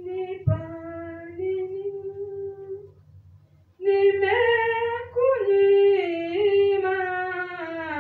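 A solo woman's voice singing unaccompanied into a handheld microphone, long held notes in two phrases with a short pause about three seconds in. A steady low hum runs underneath, and a single low thump comes about half a second in.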